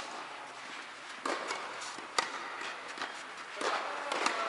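Tennis rally: a loud, sharp racket strike on the ball as the serve is hit right at the start, then several more sharp pops from racket hits and ball bounces over the next few seconds.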